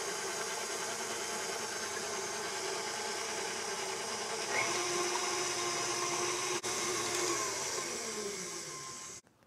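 Electric tilt-head stand mixer running with its flat paddle, beating eggs in a stainless steel bowl. The motor hum steps up in pitch and gets louder about halfway through as the speed is turned up, then falls in pitch as it is switched off and winds down, stopping just before the end.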